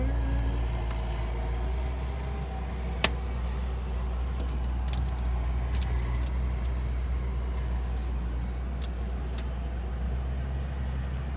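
A steady low hum, with a single sharp click about three seconds in and a few faint ticks later.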